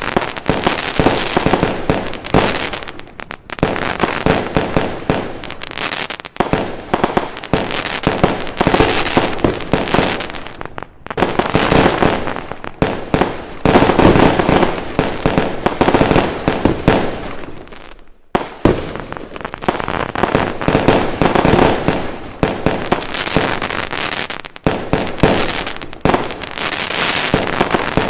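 Fireworks going off in a dense barrage of rapid bangs and crackling pops. The barrage comes in runs of a few seconds with short breaks between them.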